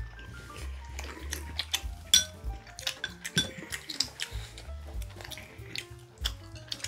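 Chopsticks clicking and tapping against ceramic plates and bowls: many small sharp clinks of tableware during eating, over background music.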